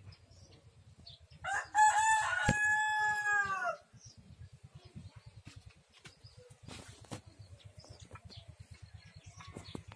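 A rooster crows once, a pitched call of about two seconds starting about one and a half seconds in and falling away at the end. Faint knocks sound around it, one sharp one in the middle of the crow.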